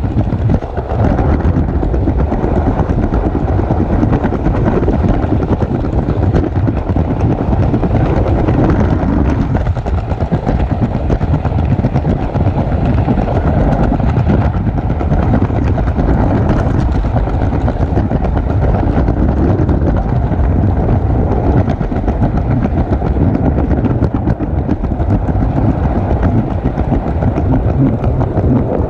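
LEGO train running on plastic LEGO track, its motor and wheels making a steady, loud rattling rumble, heard close up from a camera riding on the train.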